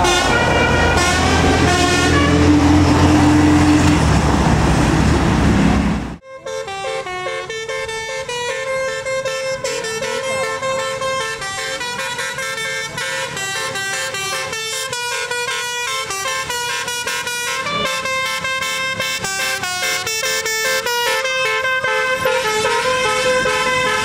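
Bus 'telolet basuri' musical horns tooting a quick melody of changing notes over a heavy bus engine, which cuts off suddenly about six seconds in. After that comes a longer, steady run of stepping horn notes playing a tune, with little engine sound beneath.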